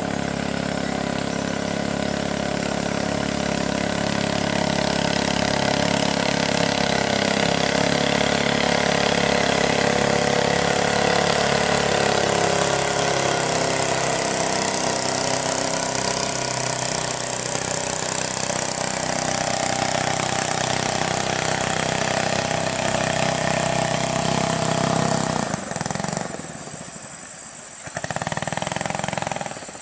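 Longtail boat engine running at speed as the boat passes close by, a steady drone that drops away about 26 s in, swells again briefly near the end, then fades.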